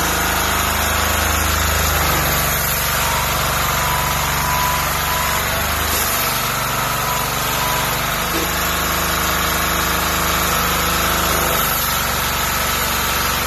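Diesel pressure washer's engine running steadily under the hiss of water spray from a rotary surface cleaner. The engine note shifts a few times, about 2, 6, 8 and 12 seconds in.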